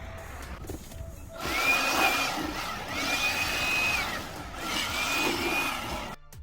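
A small electric motor, as in a power tool or vacuum, run three times in a row: each time a whine rises as it spins up, holds and falls as it is let off.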